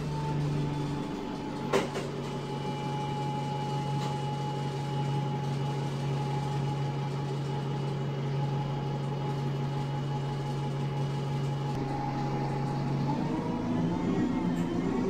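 ADL Enviro 200 bus's diesel engine idling with a steady hum, heard from inside the rear of the saloon, with a single sharp click about two seconds in. Near the end the engine note changes and rises as the bus starts to pull away.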